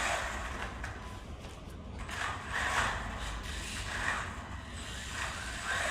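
Small electric RC car driving laps, its motor and tyres whirring in repeated swells as it speeds up and passes through the turns.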